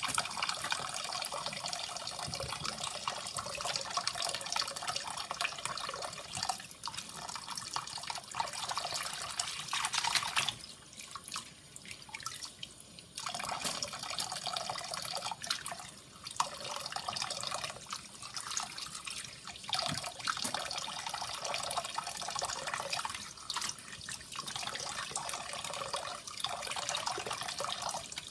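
Tap water running into a stainless steel bowl of water and shiso leaves, with a steady splashing rush. It turns quieter for a few seconds about ten seconds in.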